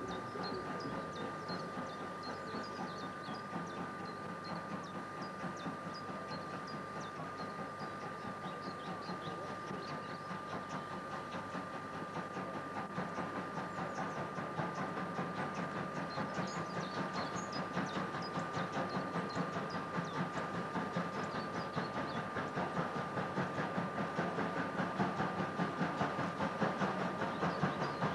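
Class 52 steam locomotive 52 8154 working a train, its exhaust chuffing in a steady beat that grows louder as it approaches, with rail noise from the coaches.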